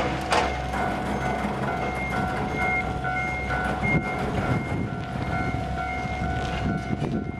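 Japanese level crossing alarm ringing its steady repeating electronic clang while an electric express train passes. A few sharp wheel clacks over rail joints sound right at the start, and a continuous rumble of the train runs under the alarm.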